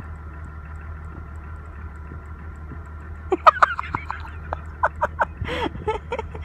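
Pickup truck engine idling steadily under snow. About halfway through, a run of short squeaky chirps and a crunch or two come over it.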